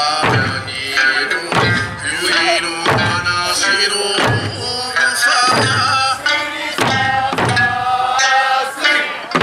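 Okinawan Eisa music: large barrel drums (ōdaiko) struck in unison, a heavy beat roughly every second and a quarter, under a sung folk melody with sanshin accompaniment.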